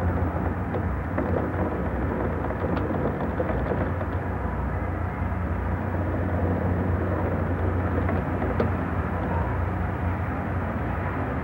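Contact-microphone recording from the sealed windows of a World Trade Center tower the morning after Hurricane Floyd: a steady low rumble and rush with a few faint ticks. It is the sound of the skyscraper moving and straining in the storm's winds.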